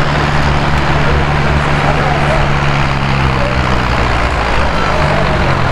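Farm tractor's diesel engine running loudly with a steady low note, which breaks up about four to five seconds in.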